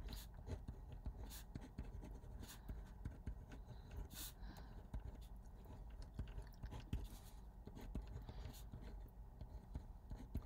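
Pen writing by hand on grid paper: faint, irregular scratching strokes over a low steady room hum.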